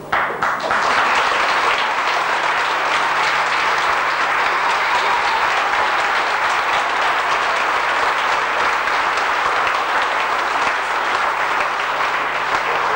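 Audience applauding: dense, steady clapping that starts suddenly and holds at an even level before easing off at the very end.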